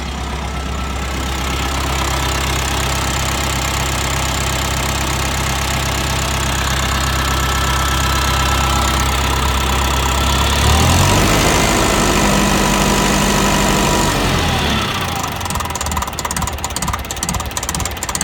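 Ferguson TEF diesel tractor engine running, steady at first, with its pitch shifting about eleven seconds in. From about fifteen seconds in it runs with an uneven, pulsing beat, which the owner suspects is a misfire.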